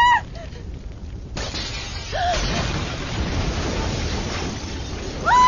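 A short cry at the start, then about a second and a half in a sudden burst of fire: flames whoosh up and keep rushing. Near the end a high, held scream starts.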